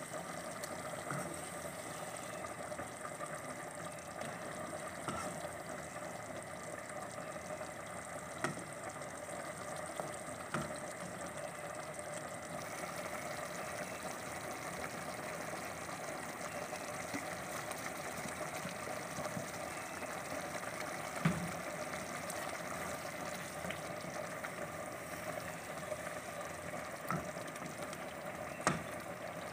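Thick tomato and minced-meat sauce simmering in a pot with a steady sizzle, while a wooden spoon stirs it and knocks sharply against the pot a few times.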